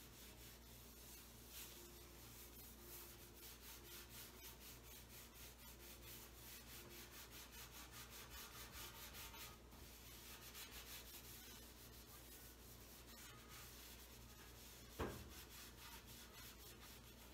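Faint, rhythmic back-and-forth rubbing of a cloth scrubbing a stovetop's black enamel surface, several strokes a second. A single sharp knock about fifteen seconds in.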